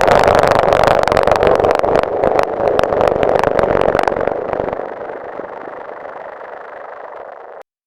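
A church bell sound effect so heavily distorted by digital effects that it no longer rings as a bell: a dense, crackling noise. It fades over its second half and cuts off suddenly near the end.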